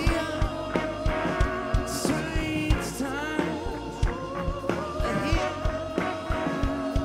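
Rock band playing live: a steady kick-drum beat with cymbal hits, electric guitars and bass, and a singing voice in the mix.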